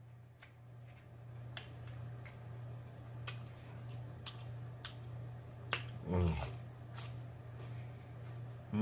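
Close-miked chewing of a mouthful of crab salad: scattered wet mouth clicks and lip smacks. There is a short hummed 'mm' about six seconds in, over a steady low electrical hum.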